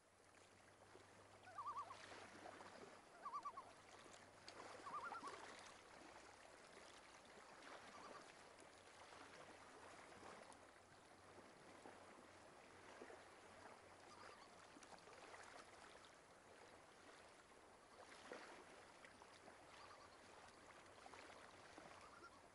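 Very faint outdoor nature ambience: a soft hiss with short chirping calls, three quick trills in the first five seconds and weaker scattered ones after, over a faint low hum.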